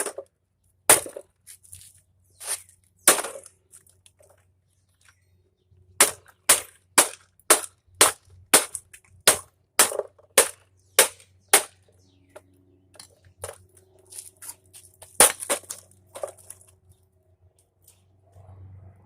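Sharp, hard knocks of blows struck on an appliance housing to break a small motor free: a few scattered strikes, then a steady run of about a dozen at roughly two a second, then two more near the end.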